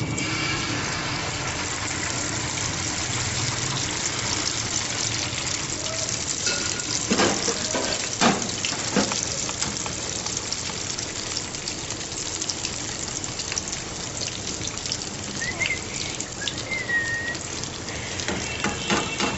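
Malpua batter frying in hot ghee in a metal pan, a steady crackling sizzle. A few clinks of metal tongs against the pan come about seven to nine seconds in.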